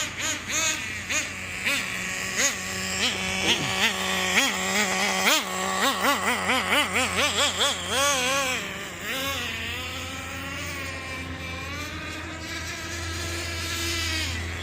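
Traxxas Nitro 4-Tec RC car's two-stroke nitro engine revving in quick repeated throttle blips, its pitch rising and falling about two or three times a second. For the last few seconds it runs more steadily, with only gentle swings in pitch.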